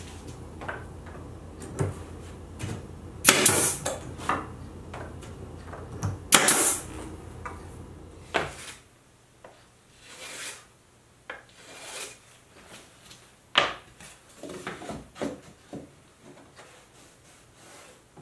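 Pneumatic stapler driving 1-inch staples through cedar shingles into plywood: two loud sharp shots, each with a short burst of air, among lighter knocks. In the second half, loose cedar shingles are handled and set against the plywood with scattered light wooden knocks and clicks.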